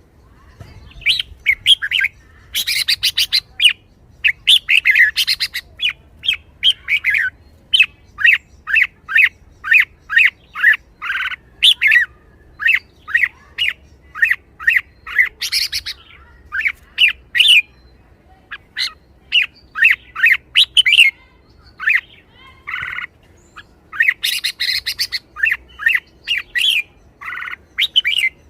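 Red-whiskered bulbul calling in quick series of short, sharp notes, broken by bursts of harsh chattering "rik-rik-rik": a bird in lively, excited form.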